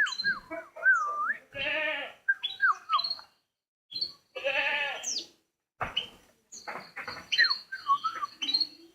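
A bird calling in a strange mix of short whistled notes that slide up and down, broken by two longer, harsh calls, one about a second and a half in and one about four seconds in.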